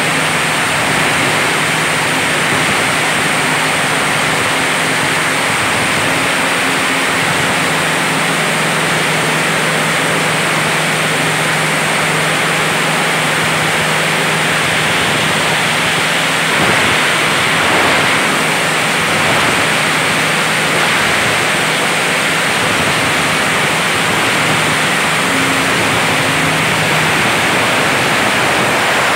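An ARUN plastic pallet grinding machine (granulator) running and chopping plastic into granules: a loud, steady rushing noise with a low hum underneath, swelling slightly about halfway through.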